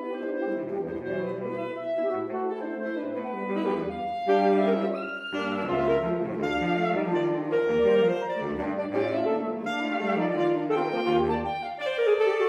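Saxophone quartet (soprano, alto, tenor and baritone saxophones) playing a busy, fast-moving classical passage, the baritone putting short low notes under the upper voices. A chord of held notes begins near the end.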